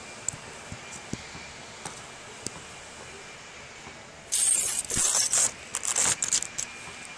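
Handling noise on a phone's microphone: loud scraping and crackling as the phone is touched and adjusted, starting a little past midway and going on in shorter crackles for about two seconds, over a low steady hiss.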